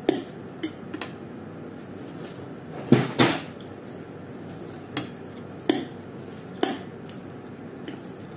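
Metal fork and spoon clinking and scraping against a plate of fried noodles: a string of about eight sharp clinks, the loudest a quick pair about three seconds in.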